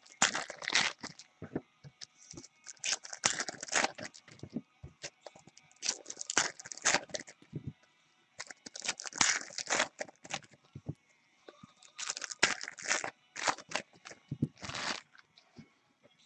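Baseball card pack wrappers being torn open and crinkled by hand, in several bursts of crackly tearing with short pauses between them.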